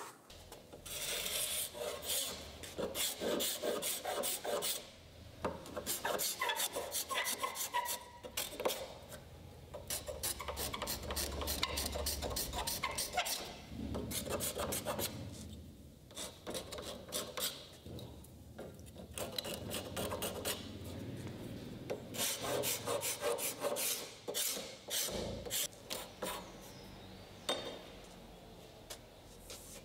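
Hand-held metal scraper scraping old dried PVA wood glue off a wooden bed rail around its square pegs, in runs of short rasping strokes with brief pauses. The old glue is being cleared because dried PVA glue will not bond to new glue.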